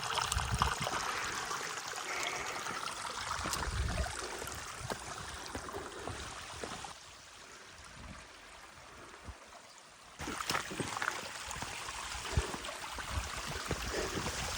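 Small mountain stream trickling and gurgling over rocks. It grows quieter for a few seconds in the middle and comes back suddenly about ten seconds in.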